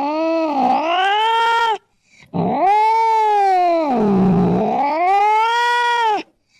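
Cat yowling: long, drawn-out wavering calls whose pitch dips and rises. One call ends a little before two seconds in, and a second, longer one runs to about six seconds and cuts off.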